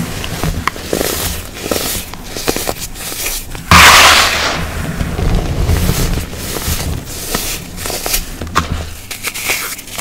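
Clumps of baking soda crunched and crumbled between the hands, a run of soft powdery crackles and squeaks, with one louder crunching rush about four seconds in as a clump breaks apart.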